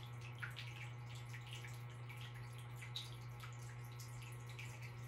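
Quiet room tone: a steady low hum with faint, irregularly scattered ticks.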